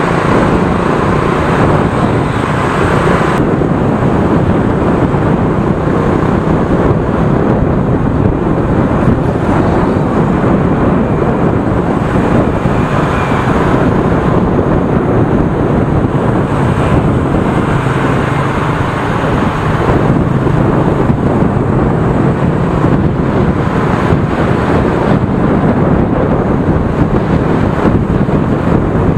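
Wind rushing over the microphone of a camera moving along in dense motorbike traffic, over the steady running of motorbike engines.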